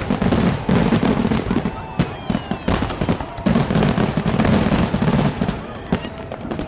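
Fireworks display going off: dense rapid bangs and crackling, with a few rising whistles about two seconds in.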